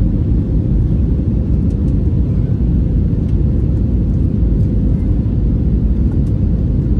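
Steady low rumble of engine and airflow noise inside an airliner cabin, heard from a window seat during descent with the flaps extended.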